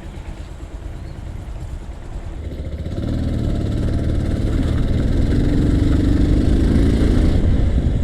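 Bajaj Pulsar 220F motorcycle's single-cylinder engine running as the bike moves off, growing louder from about three seconds in as it accelerates, then easing off near the end.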